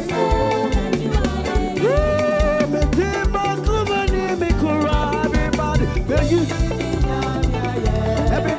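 Upbeat live praise music with a steady driving drum and bass beat and a singing voice over it.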